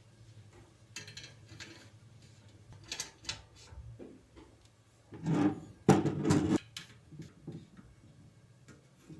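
Hardware being handled during assembly: scattered light clicks and clatters, with a louder burst of clattering and knocking about five to seven seconds in, over a steady low hum.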